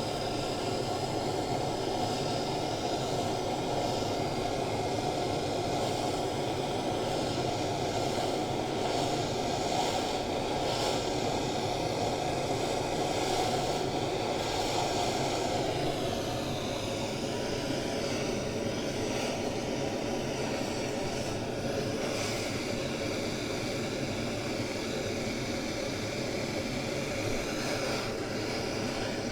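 Propane torch flame burning with a steady loud hiss, heating copper pipe for soldering. The sound changes a little about halfway through.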